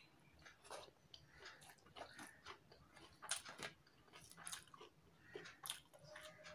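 Close-up mouth sounds of a person eating rice and fish curry by hand: soft chewing, wet smacks and clicks at an irregular pace, with the squish of fingers mixing rice on a steel plate. The loudest smack comes a little over three seconds in.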